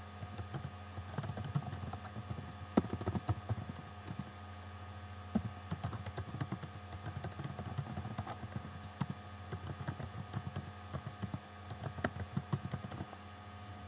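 Typing on a computer keyboard: irregular runs of quick key clicks with short pauses between them, over a steady low hum.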